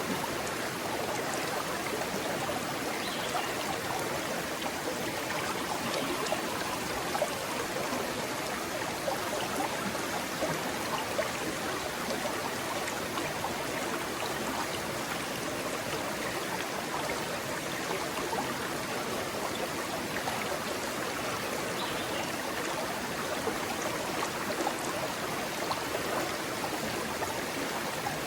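Rocky stream flowing steadily over and between stones, a continuous rushing babble with small splashes.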